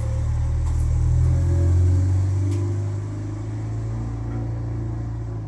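A motor running with a low, steady-pitched rumble that swells about two seconds in, eases off, then drops away suddenly at the end.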